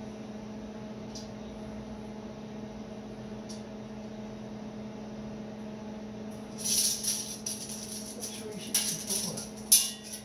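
Steady low hum, then from about six and a half seconds in a run of metallic rattling and clinking, with the sharpest clink just before the end.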